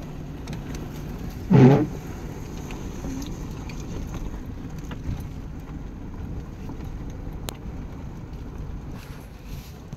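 Pickup truck driving a rough dirt road, heard from inside the cab: a steady low rumble of engine and tyres. A short, loud pitched sound cuts in once about one and a half seconds in, and a few faint clicks follow later.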